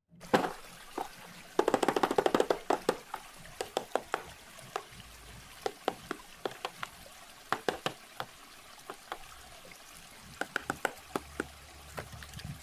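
Sharp clicks and knocks of a toy RC car and its packaging being handled, with a quick rattling run of clicks about two seconds in. Under them runs a faint steady water sound.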